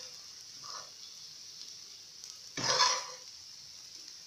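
Scrambled eggs sizzling faintly on low heat in a metal frying pan while a metal spoon stirs and turns them, with one louder scrape of the spoon against the pan about two and a half seconds in.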